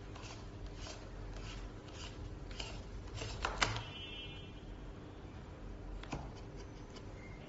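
Kids' scooter handlebar stem sliding and rubbing in its tube as the height is adjusted, with a sharp click about three and a half seconds in and a softer click about six seconds in.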